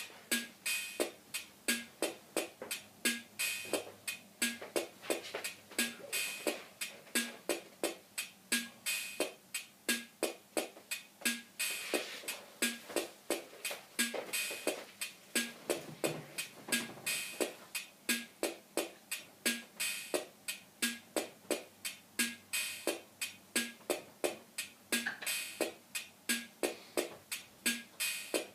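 Instrumental music with a steady, quick percussive beat of about three hits a second, and no singing.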